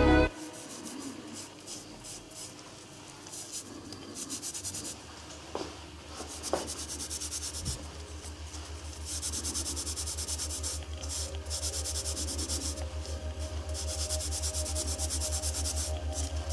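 Gloved fingers scrubbing thin silver and gold sheet-metal strips with a white powder. The strokes are scattered at first and settle into a quick, even back-and-forth rhythm after the first several seconds.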